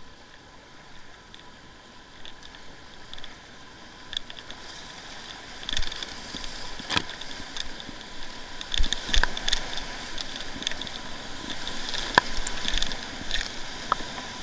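Whitewater kayak running a river rapid: the rush of the water grows louder as the boat drops into the whitewater, with sharp paddle splashes and spray hitting the boat coming thick and fast from about halfway through.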